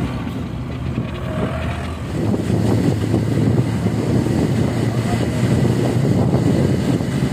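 Bus engine running under load, heard from inside the cabin, with a steady low hum that grows louder about two seconds in. Road and wind noise mix in.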